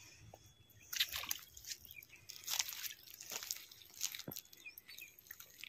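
Irregular small splashes of a hooked rohu thrashing at the water's surface as it is played in on the line.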